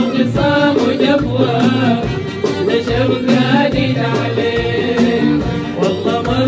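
Live Sudanese song: a male singer's voice over a string orchestra, with hand percussion keeping a steady beat.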